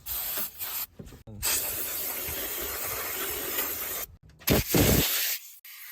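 Cleaning spray hissing onto wiring-harness connectors: a couple of short bursts, then one steady spray lasting about three seconds, and a few louder short bursts before it cuts off suddenly.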